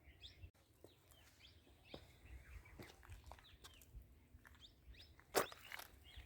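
Faint chirps of wild birds in mountain woodland, with one sharp click or knock about five seconds in.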